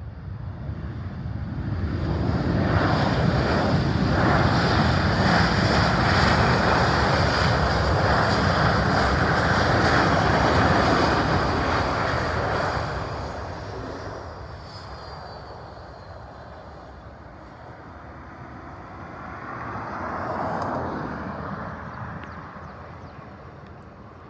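Airplane engines passing close by. The sound builds over the first two seconds, stays loud for about ten seconds, then fades, swelling again briefly near the end.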